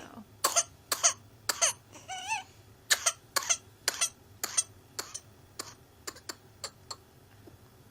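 A child's coughing fit: a long run of short, sharp coughs in quick succession, loud at first and fading toward the end, with a brief high-pitched gasp a little over two seconds in. This rapid, unbroken string of coughs is the pattern typical of pertussis (whooping cough).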